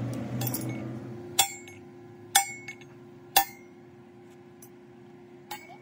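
Hammer striking the welded steel of a truck axle housing three times, about a second apart, each blow ringing briefly like struck metal, then a lighter double tap near the end. A rough scraping noise fills the first second.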